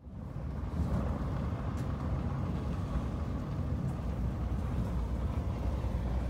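Car driving along a dirt forest road, heard from inside the cabin: a steady low rumble of engine and tyres on the unpaved surface, with a few faint ticks.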